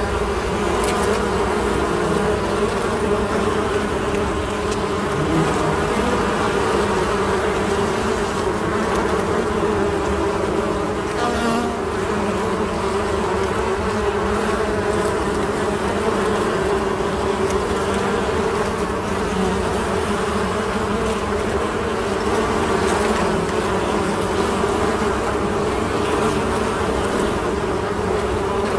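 Many honeybees buzzing in flight around a hive, a steady, continuous hum of wings.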